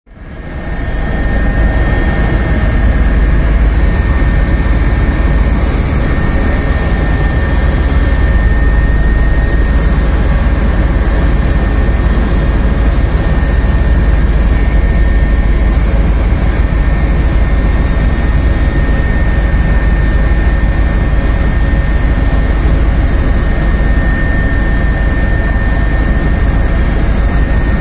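Helicopter cabin noise: the engine and rotor give a loud, steady drone with a thin, constant high whine above it.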